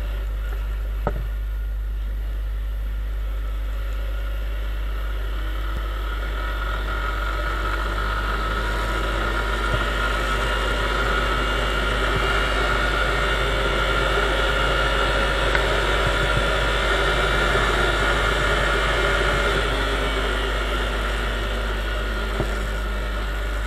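Viper 200 motorcycle engine pulling hard in second gear. The revs climb slowly over several seconds, hold high, then ease off near the end, over a steady low rumble.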